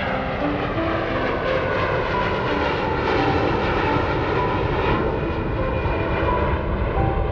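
Jet airliner flying low overhead near the runway end, its engines a steady loud rush that grows slightly louder, with whining tones that bend in pitch as it passes.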